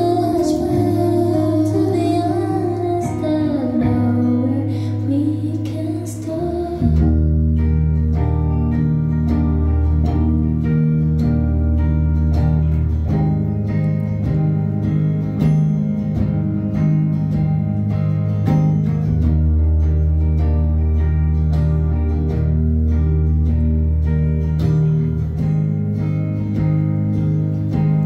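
Live indie pop song: a woman sings over electric guitar for the first six seconds or so, then the music carries on without vocals, with sustained low chords and bass under picked electric guitar notes.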